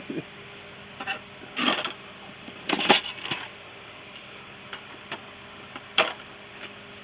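Hand tools and small metal items clinking and clattering as they are handled and shifted around in a small toolbox: a string of separate knocks and rattles, the loudest about three seconds in.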